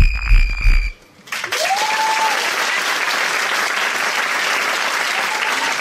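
Electronic music with a heavy bass beat stops about a second in; after a brief silence the audience breaks into steady applause, with one rising whistle from the crowd.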